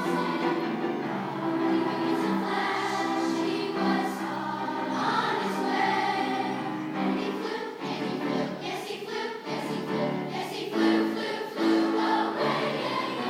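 Middle school choir singing, holding notes together in several parts.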